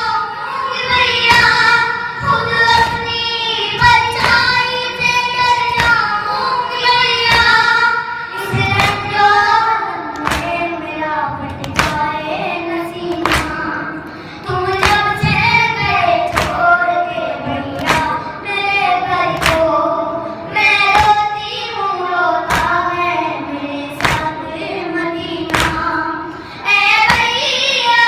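Boys chanting a nauha, a Shia mourning lament, through microphones, accompanied by matam: hands striking chests in a steady beat of sharp thumps under the singing.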